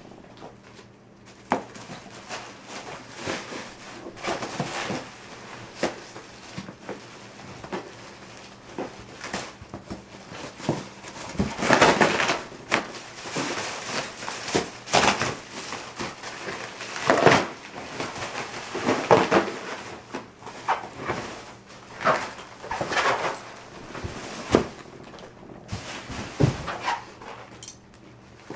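Cardboard shipping box and packing being torn and handled: a run of irregular rustling and ripping sounds with occasional knocks, the loudest bunched in the middle.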